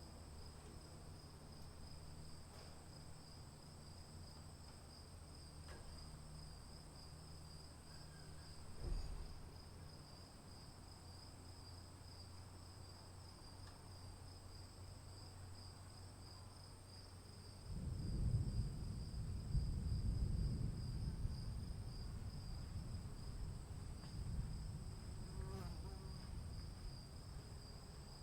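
Crickets and other insects chirring in a steady high drone, with a low rumble of thunder that swells up about two-thirds of the way in and rolls on almost to the end.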